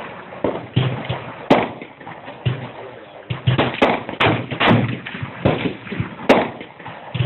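A dozen or so sharp knocks and clicks at uneven spacing from a revolver being handled, the loudest about a second and a half in and near the end.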